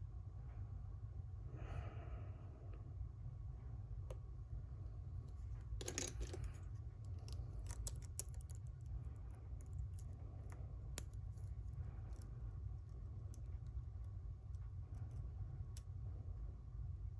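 Lock pick and tension wrench working in the keyway of a Schlage Primus lock cylinder: scattered light metallic clicks and a brief scrape as the pick works the pins, over a steady low hum.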